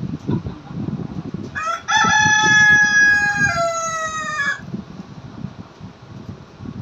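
A rooster crowing once, about three seconds long: a short opening note, then a long held note that steps down in pitch for its last second. Low rustling noise runs underneath.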